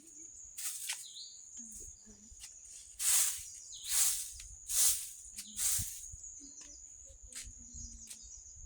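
An insect shrilling steadily at one high pitch, with four loud hissing rushes, each under a second long and spaced about a second apart, around the middle.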